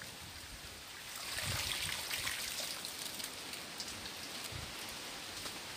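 Muddy pond water splashing and pouring through a mesh scoop net as it is lifted from a shallow pool, starting about a second in, then trickling and dripping, with a couple of dull thuds.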